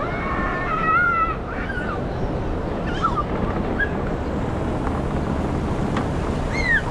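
Wind rushing over the microphone as a steady, noisy rumble. Over it come a few short high-pitched calls, the longest cluster lasting about a second and a half at the start.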